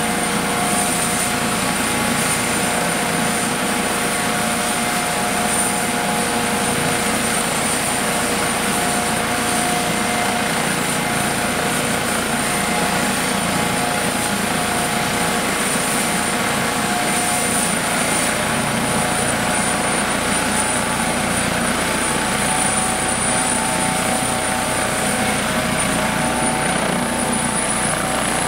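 Eurocopter EC 155 helicopter running on the ground with its rotor turning: a steady, high-pitched whine from its twin turboshaft engines over the rotor and engine noise. The whine edges up slightly in pitch near the end.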